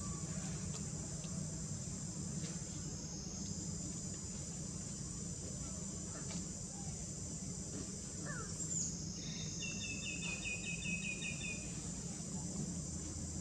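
A steady, high-pitched chorus of insects, with a low background rumble underneath. About nine seconds in there is a quick run of about eight chirping notes that lasts a couple of seconds.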